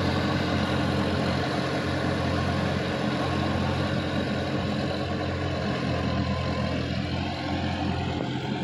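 Sonalika DI-50 RX tractor's diesel engine running steadily while it pulls a rotary tiller through the soil, fading slowly as it moves away.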